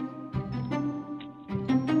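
Instrumental background music, a tune of short pitched notes following one another.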